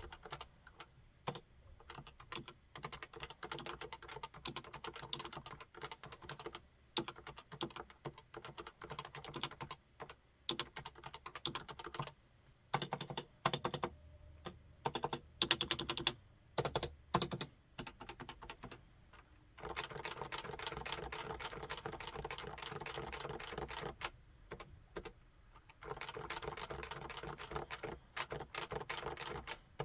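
Typing on a Topre Realforce 101 full-size keyboard with electrostatic capacitive (Topre) switches, keys bottoming out in quick runs. Around the middle of the stretch come a few slower, louder separate strokes, and near the end there are two spells of fast, unbroken typing.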